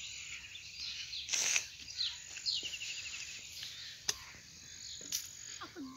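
Outdoor ambience of small birds chirping, with a quick falling trill about two and a half seconds in. A brief burst of rustling noise comes about a second and a half in, and a thin, high steady note near the end.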